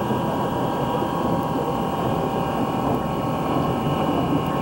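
Steady rumble and hiss in the cab of a working steam locomotive, even throughout with no single sound standing out.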